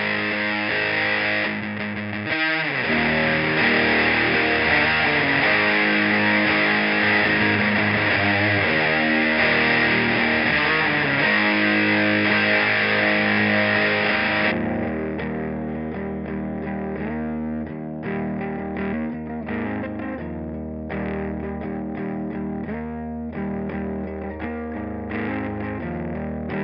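Electric guitar played through distortion pedals, chugging out a heavy riff. About fourteen seconds in the tone turns darker and a little quieter, with short breaks between the chords.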